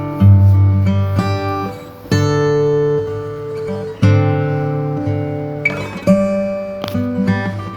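Background music: acoustic guitar strumming chords, a new chord struck about every two seconds.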